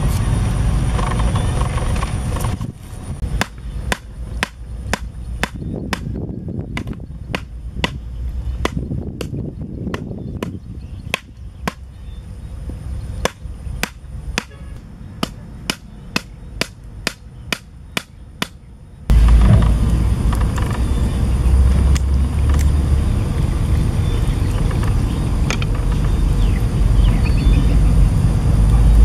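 Wooden stakes being hammered into the ground with a wooden club: a long run of sharp, regular knocks, about one to two a second. About two-thirds of the way through the knocking stops and a loud steady low rumbling noise takes over.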